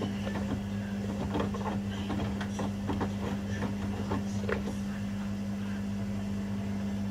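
Front-loading washing machines running mid-wash: a steady motor hum, with irregular light knocks and clicks from the tumbling drum and load for the first four or five seconds.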